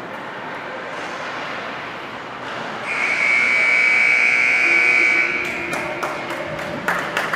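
Ice rink's scoreboard horn sounding its end-of-period buzz as the game clock hits zero: one steady, loud, buzzy tone lasting about two seconds. Rink ambience runs underneath, and after the horn come a run of sharp taps and knocks.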